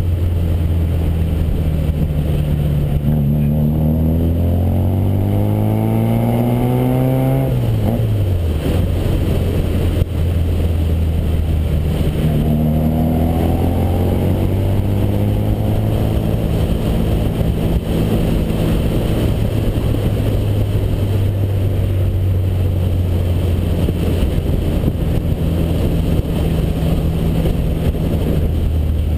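Austin-Healey Sprite Mk1 Frogeye's 1290 A+ engine running through a single-box RC40 exhaust while driving. The revs climb from about three seconds in, drop sharply near eight seconds, pick up again around twelve seconds, then hold steady, with a constant rush of wind and road noise.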